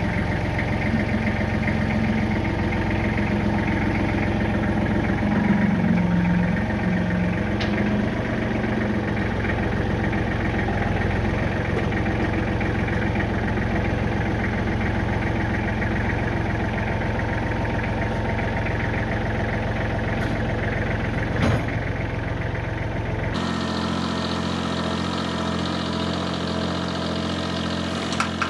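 Kubota tractor's diesel engine running steadily under light work, its note rising briefly a few seconds in, with a single clank about twenty seconds in.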